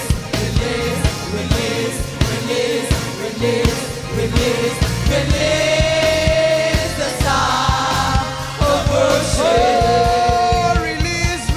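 Live gospel worship music: a band with drums keeps a steady beat while voices sing, holding long drawn-out notes through the second half.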